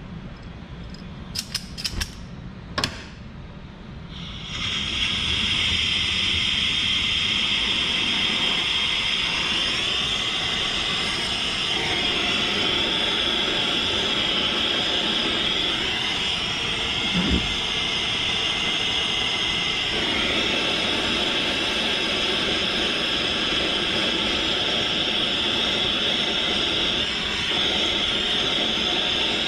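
A few sharp clicks of a torch striker, then a soldering torch lights about four seconds in and burns with a loud, steady hiss, heating solder for a wire-to-sheet post joint.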